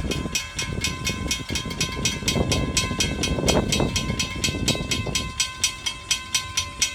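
Railroad crossing bell ringing rapidly, about five strokes a second, while the crossing gates rise. It cuts off near the end, as the gates finish going up. Under it is a low rumble that dies away.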